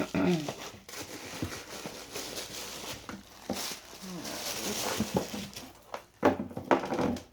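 Packaging rustling and crinkling as a bag is handled and unwrapped, with a few short vocal sounds.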